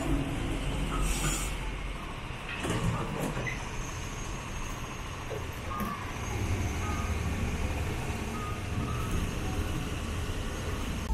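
Sapporo streetcar no. 252 standing at a stop with its equipment running, over a steady rumble of street traffic. A couple of sharp clicks come in the first three seconds, and a few short, faint high tones are scattered through.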